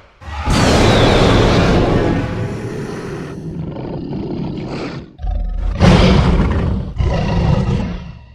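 Acrocanthosaurus sound-effect roars, a designed dinosaur voice: one long, rough roar from about half a second in that slowly fades, then two shorter roars near the end.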